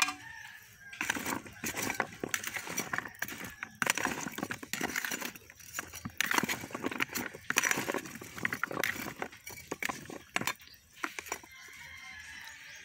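A metal spatula scraping and clinking against a pot as sliced carrots and potatoes are stirred, in quick uneven strokes that stop near the end.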